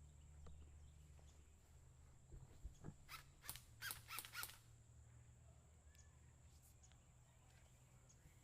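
A bird calling five or six times in quick succession, about three seconds in, over near silence.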